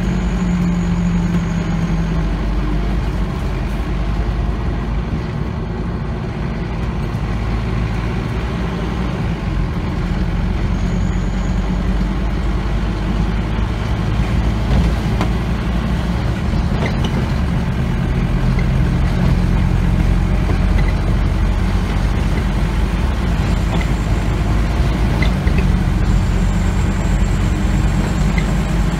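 Scania OmniCity double-decker bus driving, heard from inside the passenger saloon: a steady diesel engine drone and road noise, with the engine note shifting a few times and occasional light rattles from the body.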